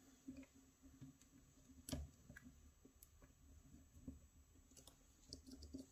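Faint, scattered clicks from a freshly picked euro-profile cylinder lock as its plug is turned round with the tension wrench and pick still in the keyway, the spring-loaded pins clicking as the plug passes their chambers. The sharpest click comes about two seconds in.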